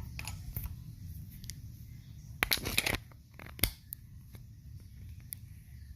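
Hand tools being handled in a tool bag: scattered light clicks and rustling, with a louder cluster of clicks and knocks about two and a half seconds in and a single sharp click a second later.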